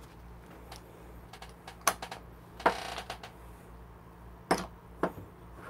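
A handful of separate sharp clicks and light knocks from small coffee equipment being handled and set down, with a short scrape about three seconds in, over a faint steady hum.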